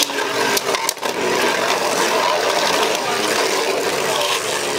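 Two Beyblade Burst tops spinning in a clear plastic stadium, a steady whirring hiss of their tips on the stadium floor, with a few sharp clacks in the first second as they strike.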